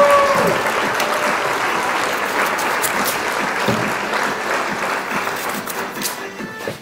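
Audience applause, loud at first and fading out gradually over several seconds.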